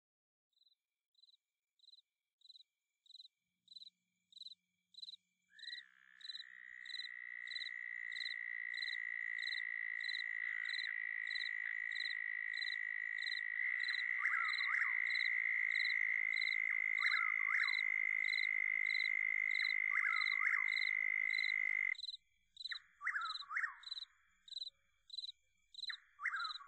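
Night nature ambience: a cricket chirping at an even pace, about two chirps a second, fading in at the start. About six seconds in a steady high insect-like drone joins it, with short sweeping calls over it now and then. The drone stops abruptly about 22 seconds in, leaving the chirping and a few more calls.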